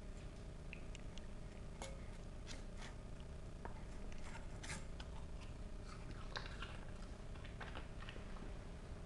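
Pembroke Welsh corgi eating apple slices and green beans from a stainless steel bowl: irregular crunchy chewing with crisp clicks.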